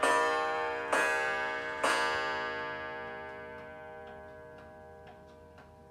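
Antique Waterbury wall clock's hammer striking its coil gong three times, about a second apart, the last strokes of the hour, then the gong ringing down. As the ring fades, the pendulum's tick comes through at about two ticks a second.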